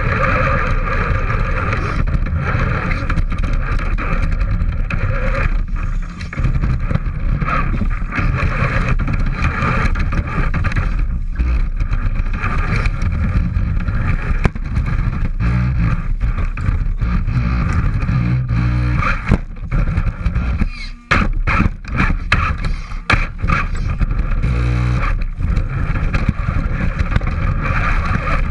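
Radio-controlled scale crawler's electric motor and gearbox whining steadily as it drives over leaf litter and rocks, with a few brief drops and knocks a little after the middle.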